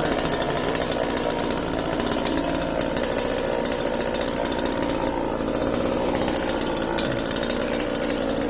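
Chainsaw engine running steadily at an even pitch.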